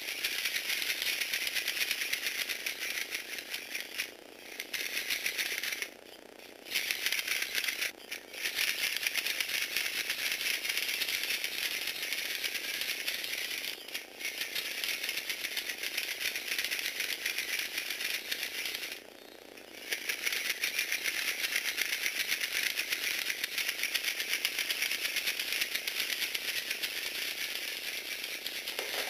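Lego Technic four-legged walking robot, its plastic gear train and legs running with a fast, dense rattle as it steps along. The rattle stops briefly several times, the longest break lasting about a second.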